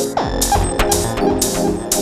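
Deep techno played on an Elektron Analog Four MK1 analog synthesizer: sustained synth chords under short hissing hits about four a second. A falling pitch sweep about a fifth of a second in drops into a low bass hit.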